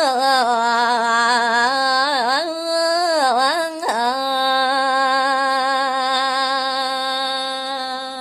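A woman singing a Balinese pupuh, solo voice, drawing one syllable out into a long ornamented line: two swooping dips in pitch early on, then a long steady held note that tapers off near the end.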